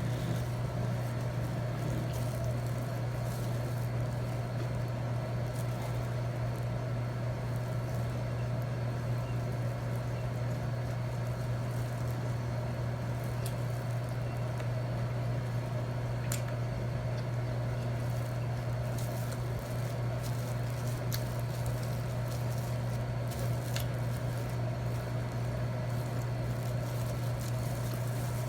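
A steady low hum runs through, with a few faint, sharp clicks scattered over it.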